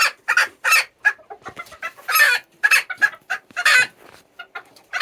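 Serama bantam chickens making a loud fuss: a run of short, sharp squawking calls, about two a second.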